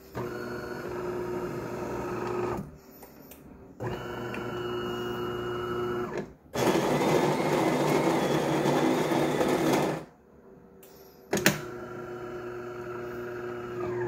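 De'Longhi bean-to-cup espresso machine running a one-cup brew cycle: its motors hum in separate stretches, with a louder, rougher stretch of about three seconds in the middle. There is a sharp click about eleven seconds in, and the hum starts again.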